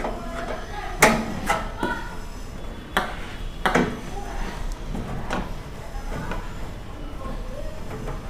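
Knocks and metallic clicks from a microwave oven's sheet-metal casing and parts being handled while it is taken apart. There are several separate sharp hits, most of them in the first four seconds.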